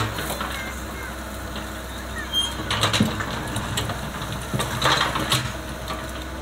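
Hydraulic excavator engine running steadily while its steel bucket digs into a bank of rocks and mud, with bursts of stones clattering and scraping against the bucket at the start, about three seconds in, and around five seconds in.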